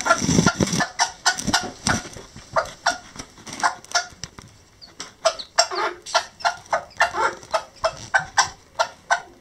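Old English Game bantam chicks peeping over and over, a few short high peeps a second, with the mother hen clucking low now and then. A low rustling thump in the first couple of seconds.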